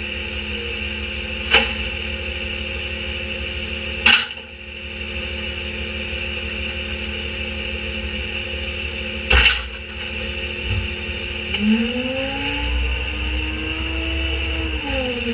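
Autocar Leach rear-loader garbage truck's diesel engine idling, with three loud bangs of bulky items thrown into the steel hopper, the last a garden hose reel cart. About three-quarters through, the engine revs up with a rising whine as the hydraulics engage, holds, then eases off near the end.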